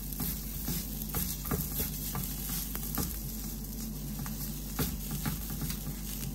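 A thick vegetable batter patty sizzling on a hot, water-sprinkled flat griddle (tawa), with soft pats and clicks as wet fingers press and spread it flat.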